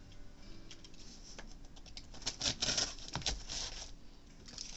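A cardboard shipping box being cut open with a box cutter: scratchy slicing and rasping of tape and cardboard, with clicks, in a run of bursts from about two seconds in.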